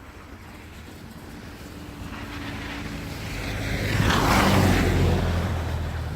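A vehicle driving past on a snowy street: its engine and tyre hiss grow louder, peak about four seconds in, then begin to fade.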